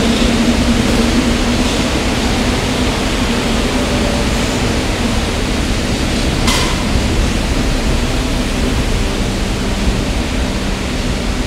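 R44 subway train of the Staten Island Railway moving slowly along the platform, a loud steady noise of the running train. A low hum fades out in the first couple of seconds, and a brief hiss comes about six and a half seconds in.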